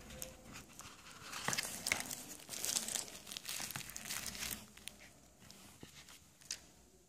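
Thin plastic packaging sleeve crinkling as a small card-sized phone is slid out of it. The crackling is busy for a few seconds, then fades, with one last crackle near the end.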